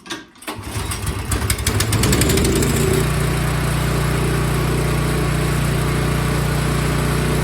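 Single-stage Toro snowblower's small engine starting after its carburetor replacement: it fires unevenly for about two seconds, then settles into a steady run.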